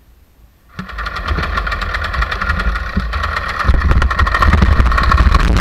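Paramotor engine and propeller coming in suddenly about a second in and running hard for a hill launch, growing louder again a little past halfway.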